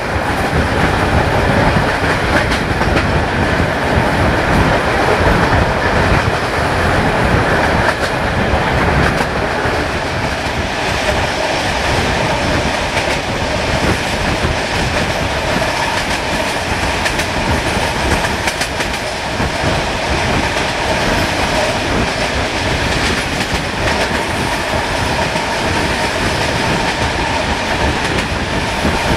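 Passenger train hauled by an LDH diesel-hydraulic locomotive running at speed, heard close to the locomotive: wheels clattering over the rails in a steady rush of noise.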